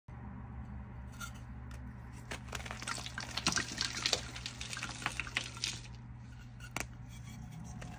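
Reformed gym chalk blocks and discs being crushed by hand, crackling and crumbling into powder in a dense run of small crunches that begins about a second in.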